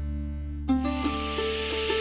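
Background music: held tones, then a little under a second in a livelier section starts with shifting plucked string notes over a bright hiss.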